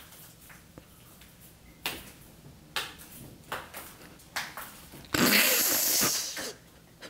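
A cat playing with a wand toy on a hard floor: scattered short scuffs and swishes, then a loud rustling scrape about five seconds in that lasts over a second.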